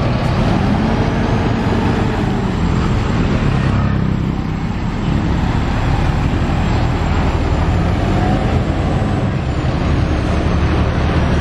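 Mercedes-Benz OH 1626 coach's six-cylinder turbodiesel working hard up a steep incline as the bus passes and pulls away, its engine pitch rising and falling. The owner says the engine is not yet fully healthy and still short of power on the climb, and is still to be tuned.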